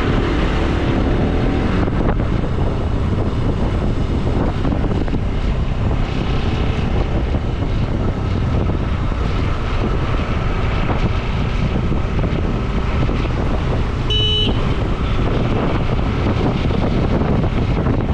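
Motorcycle riding at speed, its engine running steadily under heavy wind buffeting on the microphone. A short horn beep sounds once, late on.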